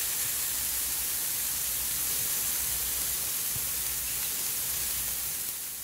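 Salmon fillets sizzling in a dry non-stick fry pan with no oil or butter: a steady frying hiss that begins to fade near the end.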